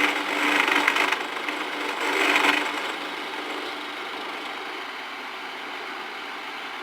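Homemade drill-press mini mill, driven by a treadmill motor, running a small end mill into bar stock. Two louder, harsher stretches of cutting come in the first three seconds, then the motor runs on with a steady hum.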